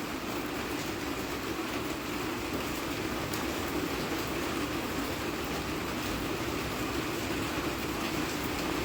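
Steady rain falling, an even rushing noise with a few faint scattered drop ticks.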